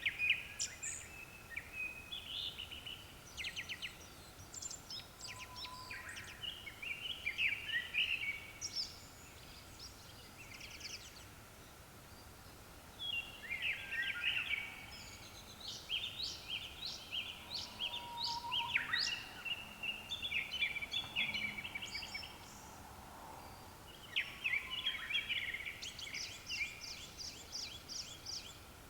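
Japanese thrush song: bouts of varied whistled and chattering phrases, with short pauses between bouts.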